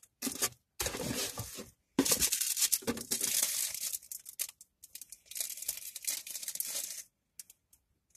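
Clear plastic wrapping crinkling and being torn open by hand, in irregular bursts of rustling that stop about a second before the end, followed by a few light clicks.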